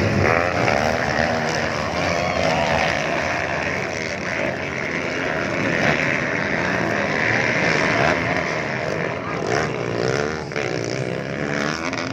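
A pack of motocross bikes racing together, their engines running hard and revving so that the pitch keeps rising and falling.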